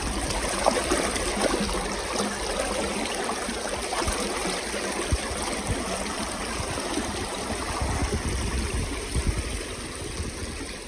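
Shallow creek water trickling and babbling over rocks, with a few small clicks and splashes mixed in.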